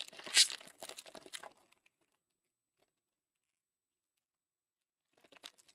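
Foil trading card pack wrapper crinkling and tearing, busiest in the first two seconds with the loudest rip about half a second in, then a few softer crinkles near the end.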